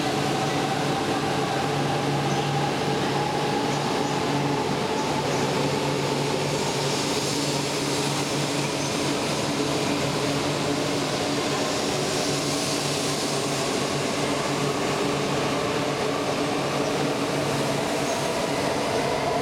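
E4 series Max double-decker Shinkansen pulling out and gathering speed, a steady running noise with a motor whine slowly rising in pitch as it accelerates past.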